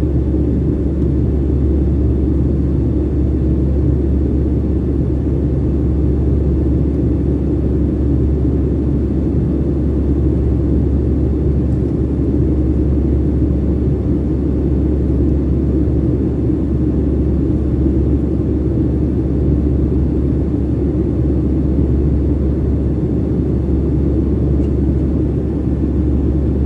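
Airliner cabin noise in flight: a steady low rumble of the jet engines and rushing air, unchanging throughout.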